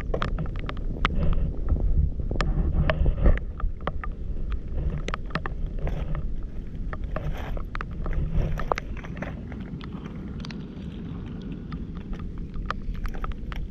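Footsteps in rubber boots on wet stones and shingle, with irregular clicks and knocks of stones shifting underfoot, over a low wind rumble on the microphone.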